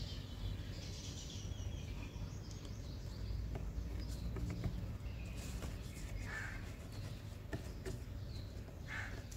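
Quiet background with a steady low rumble, a few faint clicks and scrapes as a paper cabin air filter is slid into its plastic housing, and two short bird calls, one past the middle and one near the end.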